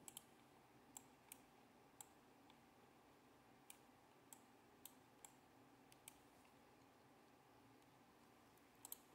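Faint, irregular computer clicks, about a dozen spread over near silence, with two quick ones near the end.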